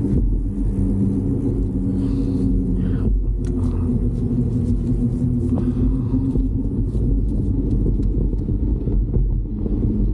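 Steady wind rumble on the microphone with road noise while riding a bicycle, plus a few light ticks and knocks in the middle.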